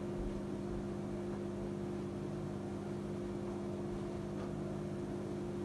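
Microwave oven running with a steady hum while it cooks pasta.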